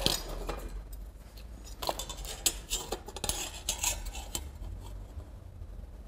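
Light metallic clinks and taps as a tape measure and steel square are set down on and moved against a perforated galvanised steel cable tray, scattered through the first four and a half seconds, then quieter.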